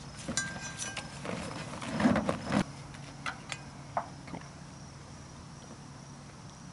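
Fabric rustling and sharp clicks as red cowl plugs are pushed into a light aircraft's engine inlets, loudest about two seconds in. After that it is quieter, with faint steady cricket chirping and a few isolated clicks.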